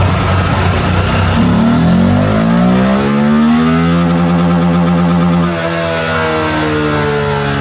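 Motorcycle engine revving up from idle about a second and a half in, holding steady at high revs, then dropping back in steps over the last two seconds.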